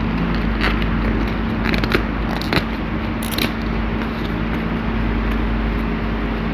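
A sheet of paper being folded and creased by hand: scattered crinkles and crackles, with a sharper crackle a little over three seconds in, over a steady low background hum.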